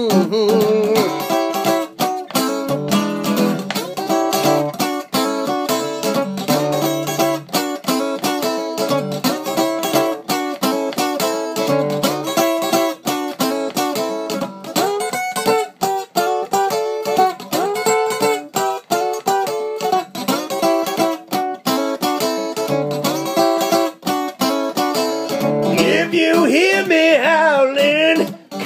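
Solo acoustic archtop guitar playing a blues instrumental break: a repeating low bass figure with picked notes over it. Near the end a man's singing voice comes in over the guitar.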